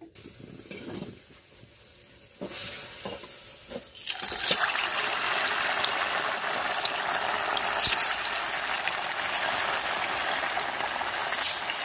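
Pieces of chandrakanti pitha (moong dal dough) go into hot oil in a kadai. First it is quiet with a few light knocks. About four seconds in, a loud, steady sizzle of deep-frying starts and keeps going.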